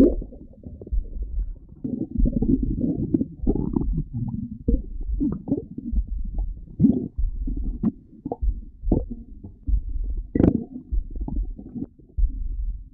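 Stomach growling: irregular low gurgles and rumbles, broken by a few short, sharper pops.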